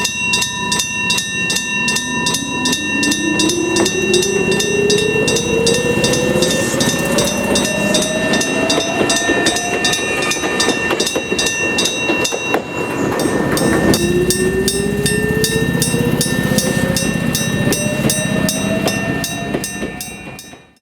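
Electric gong-type crossing bell ringing rapidly and steadily while an electric train passes with wheel noise. The train's motor whine rises in pitch twice as it gathers speed. The sound fades out near the end.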